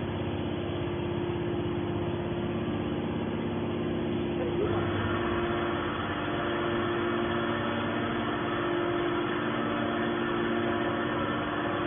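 Y81-250 hydraulic scrap metal baler running with a steady machine hum from its hydraulic power unit. About five seconds in the sound changes as higher tones join the hum.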